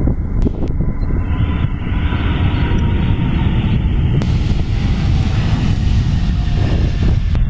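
Jet airliner's engines running as the aircraft passes close by: a loud, steady rumble with a faint engine whine.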